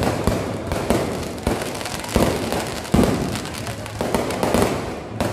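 Aerial fireworks going off: a rapid string of sharp bangs and crackling, with one of the loudest bangs about three seconds in.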